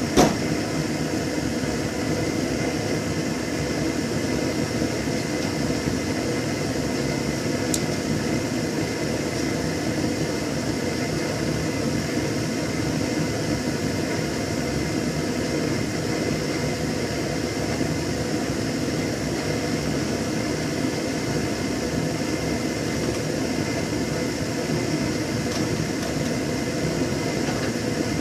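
MTZ-82 tractor's four-cylinder diesel engine idling steadily while it warms up after a cold start at −7 °C.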